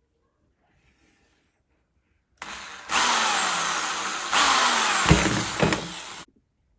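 Power drill running, boring a hole through the quick ratcheting bar clamp's body for the trigger's bolt. It starts about two and a half seconds in with a few knocks, its pitch sags as the bit works, and it stops abruptly near the end.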